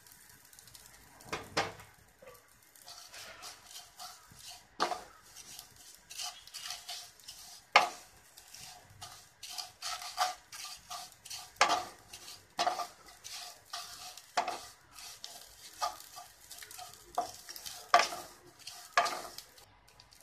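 Wooden spatula stirring thin vermicelli frying in ghee in an aluminium karahi: irregular knocks and scrapes of the spatula against the pan, over a faint sizzle.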